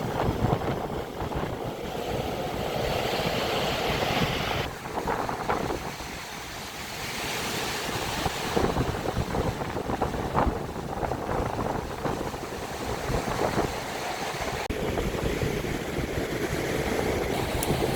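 Storm surf on the Black Sea breaking and washing in, with strong wind buffeting the microphone. The hiss of the water swells up twice, about two seconds in and again near eight seconds.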